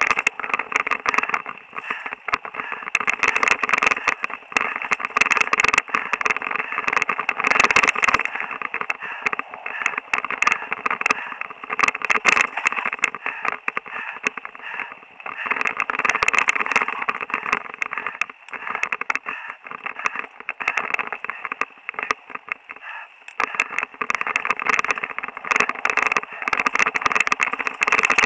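Mountain bike riding over dirt singletrack, heard through a rider- or bike-mounted camera: continuous rattling and rushing noise with frequent small knocks from bumps in the trail, easing briefly a couple of times.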